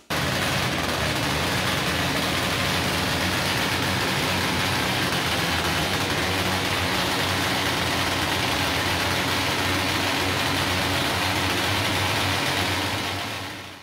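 Modified motorcycles on stands running their engines through open aftermarket exhausts, several at once, in a steady drone that fades away near the end.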